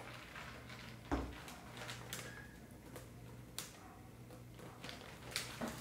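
Scattered light clicks and knocks, the strongest a dull thump about a second in, over a steady low hum.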